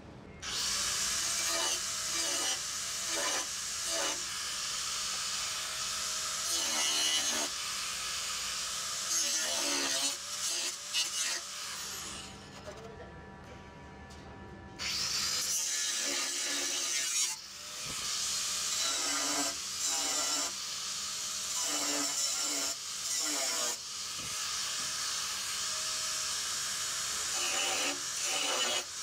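Angle grinder grinding the steel of a Land Rover Series 3 radiator panel, the load coming and going as the disc bites. It eases off for a few seconds about halfway through, then grinds on.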